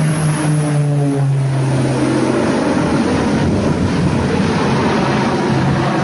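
Twin-engine turboprop running at high power as it passes low and close, with its pitch dropping about a second in as it goes by. A steady, loud propeller-and-engine drone follows as the aircraft climbs away in a steep bank.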